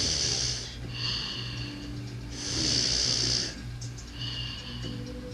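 A sleeper snoring: a loud hissing breath, then a thin whistling breath, repeating about every three and a half seconds.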